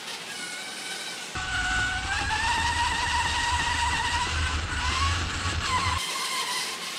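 A radio-controlled car's electric motor whining, its pitch rising and falling as the throttle changes. While the camera rides on the car, the rumble of its tyres on the hard floor runs under the whine.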